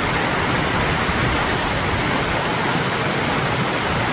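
Snyder Creek, a mountain creek running high with snowmelt, rushing loudly and steadily over rocks.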